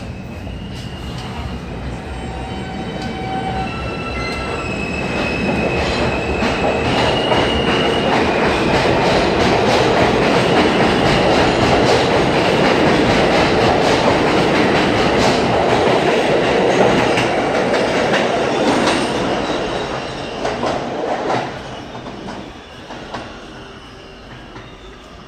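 New York City subway W train pulling out of an underground station and accelerating past: electric traction motors whine, stepping up in pitch, over a growing rumble and the clatter of wheels on rail joints. The noise builds to a steady loud run as the cars pass, then fades as the train leaves.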